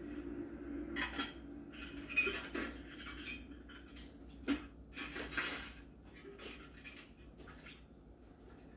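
Dishes and cutlery clinking and clattering against each other as they are hand-washed in a sink, in irregular bursts, with one sharper knock about halfway through.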